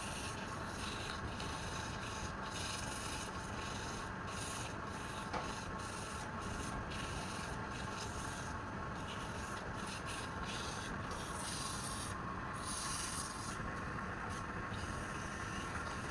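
Wood being sanded: repeated rubbing strokes that start and stop unevenly, a few a second, over a steady background noise.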